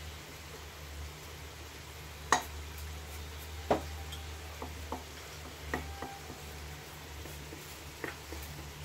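Rice and broth sizzling in a frying pan while a wooden spatula stirs it, with a few sharp clacks of the spatula, the loudest about two and a half and nearly four seconds in. A steady low hum runs underneath.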